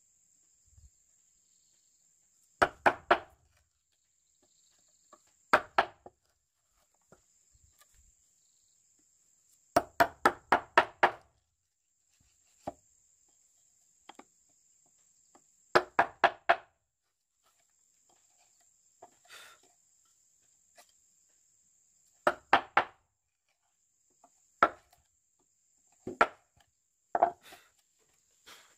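A tool striking wood hard in quick bunches of two to six blows, a few seconds apart, each blow with a short ring. Under it runs a steady, high insect drone that breaks off now and then.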